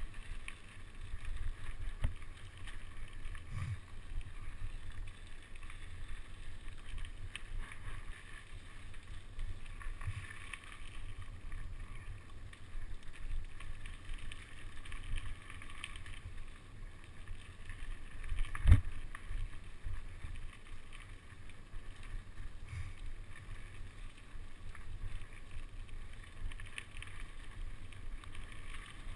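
Mountain bike riding over a dirt forest trail: a steady rumble of tyres and rattle of the bike over the ground, with one sharp knock about two-thirds of the way through.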